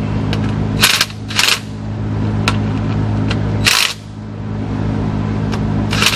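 Cordless ratchet run in several short bursts, snugging up the connecting-rod cap bolts on a Cummins ISX diesel before they are torqued, over a steady low hum.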